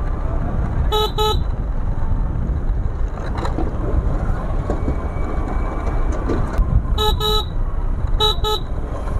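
A two-wheeler's horn beeping in quick double toots three times: about a second in, around seven seconds and just past eight seconds. Steady wind and road rumble on a riding camera's microphone lie underneath.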